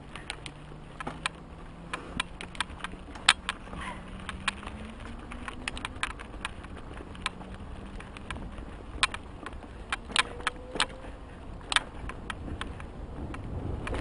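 Mountain bike clattering down a rough dirt trail: irregular sharp clicks and knocks as the bike jolts over bumps, over a low rumble of tyres and wind.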